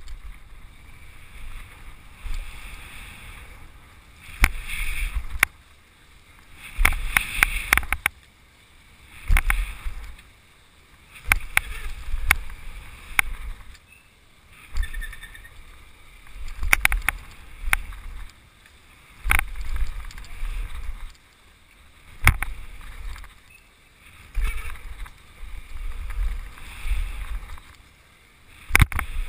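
BMX bike ridden through a line of dirt jumps: wind buffets the GoPro's microphone in repeated surges every two to three seconds, with sharp clicks and rattles from the bike on takeoffs and landings.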